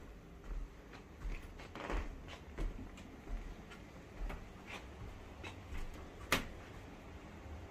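Footsteps walking slowly over tatami and wooden floors, soft low thumps with scattered light clicks and knocks; one sharper click a little over six seconds in.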